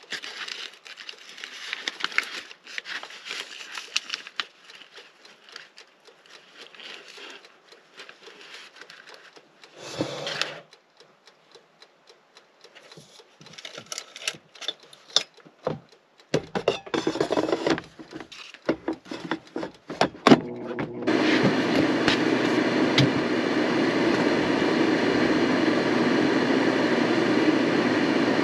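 Parchment paper rustling and metal tongs clicking as salmon is laid into an air fryer basket, with a few knocks and clicks. About 21 seconds in, the air fryer's fan starts and then runs steadily and loudly.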